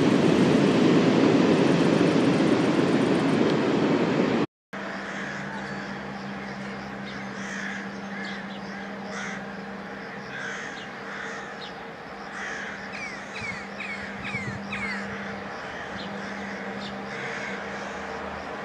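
A train running past with a loud, even rumble that cuts off abruptly about four and a half seconds in. After that, birds call in short, repeated chirps over a steady low hum.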